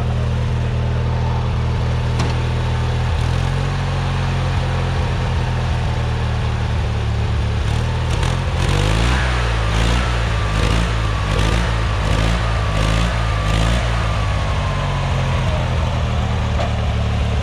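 A motor vehicle's engine running steadily, its pitch shifting about three seconds in and again around eight to nine seconds in, with a run of evenly spaced clicks or rattles in the middle.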